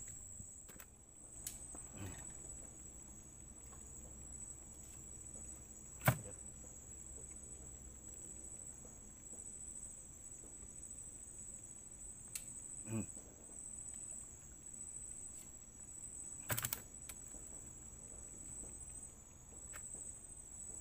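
Steady high-pitched chorus of insects such as crickets, with a few sharp knocks scattered through it. The loudest knock comes about six seconds in, and another comes a little past halfway.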